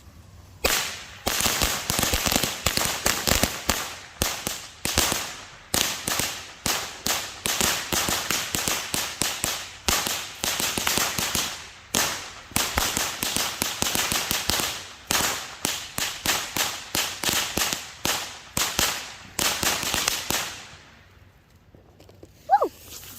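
Firecrackers going off in a long, rapid run of sharp cracking bangs, several a second, for about twenty seconds before stopping.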